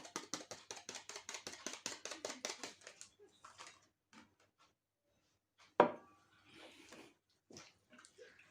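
Rapid, even strokes of a utensil beating a wet dough mixture of butter, sugar, eggs and oil in a bowl, about six a second, stopping about three seconds in; a little under six seconds in comes a single sharp knock, the loudest sound here.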